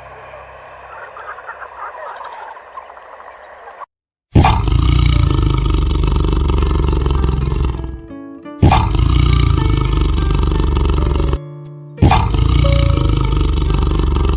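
Tiger roaring: three long, loud roars, each beginning abruptly and cut off short, starting about four seconds in, over background music. Before them there is only faint music.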